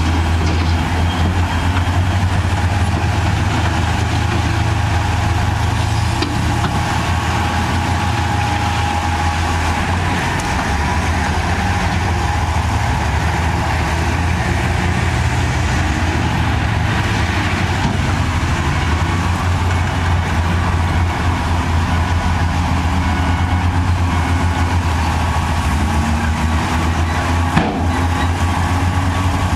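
Heavy diesel engine of earthmoving machinery running steadily with a deep, even rumble. A single sharp click comes near the end.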